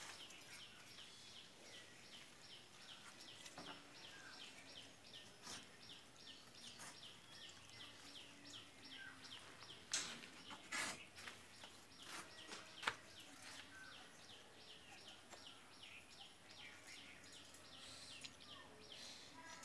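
Faint, rapid chirping from a small animal, about four short falling chirps a second, kept up almost without a break. A few sharp knocks come about ten and thirteen seconds in.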